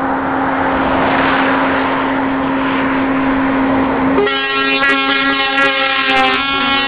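Scania lorries in a convoy driving past, with a long steady horn note held over the traffic noise. About four seconds in, rock music with distorted electric guitar and drum hits comes in over it.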